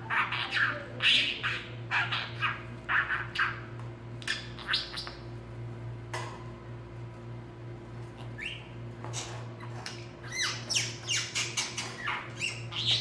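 A male budgerigar chattering in quick, high chirps and squawks, with a quieter pause in the middle before it starts up again. A steady low hum sits underneath.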